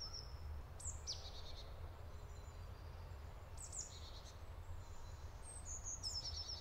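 Faint birdsong: short high chirps and quick downward-sweeping notes come every few seconds, over a low steady rumble.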